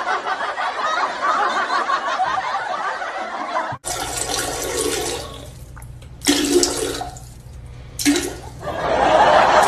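Background music that cuts off abruptly about four seconds in, then a toilet flushing with a rush of water, followed by a few short, louder sounds.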